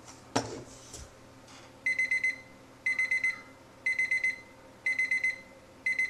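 Habor digital kitchen timer's alarm going off as the countdown reaches zero, signalling time's up: a high electronic beep in quick groups of about five pulses, repeating about once a second, starting about two seconds in. A short knock comes just before.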